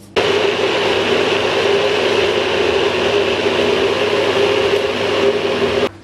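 Electric countertop blender running at a steady speed, grinding chopped fresh coconut pieces. It switches on abruptly right at the start and cuts off suddenly just before the end.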